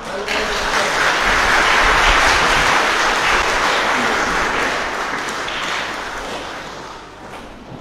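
Audience applauding, starting right as the a cappella choir's final chord ends, swelling within the first second and slowly fading away.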